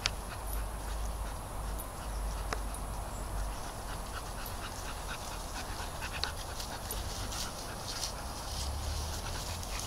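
German Shepherd panting with a ball in its mouth, most clearly in the last few seconds, with scattered small clicks and a steady low rumble underneath.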